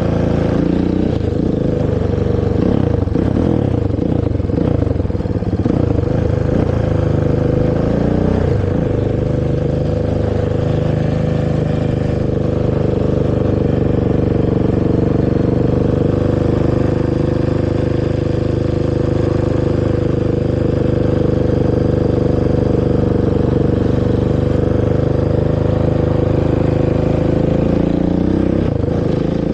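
Honda TRX450R quad's single-cylinder four-stroke engine through its stock exhaust, revving up and down for the first several seconds. It then holds a steady pitch at constant throttle until the revs drop near the end.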